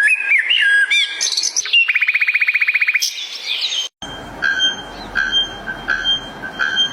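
Bird calls: whistled notes sliding up and down, then a fast, even trill lasting about a second. After an abrupt cut about four seconds in, a short two-pitched chirp repeats about every three-quarters of a second over a steady hiss.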